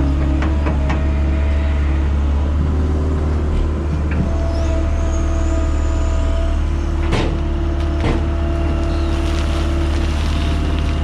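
Diesel engine of heavy earthmoving equipment running steadily under work, a loud low rumble with a steady hum above it and two sharp knocks about seven and eight seconds in.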